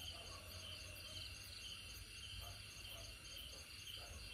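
Faint, high-pitched chirring of crickets, steady with a quick pulse.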